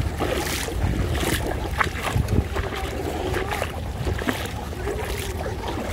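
Wind rumbling on the microphone over shallow tidal water, with repeated short splashy swishes, like steps wading through the shallows.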